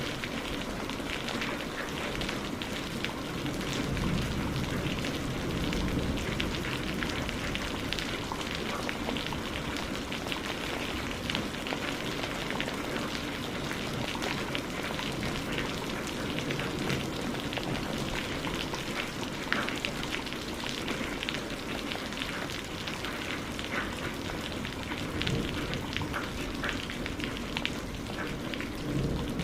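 Steady rain, with many small separate drop clicks over a low rumble.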